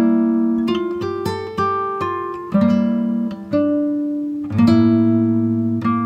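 Acoustic guitar music: plucked chords that ring out and fade, a new chord about every second.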